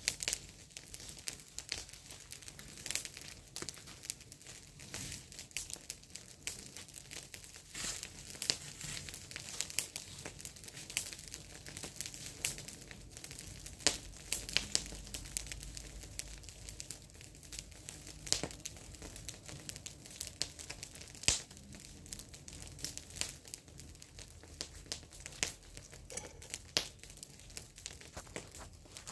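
Dry fallen leaves and grass rustling and crackling as they are scraped with a hand tool and trodden on, a steady run of irregular sharp crackles.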